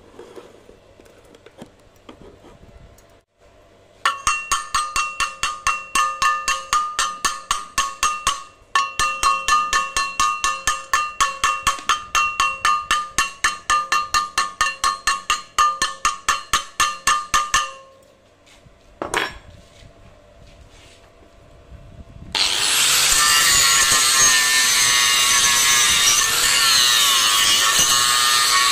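Rapid hand strokes on the steel plate clamped in a vise, about five a second for some thirteen seconds, the thin plate ringing with each one as slag is cleaned off the fresh weld. About twenty-two seconds in, an angle grinder with a flap disc starts and runs steadily, grinding down the weld bead.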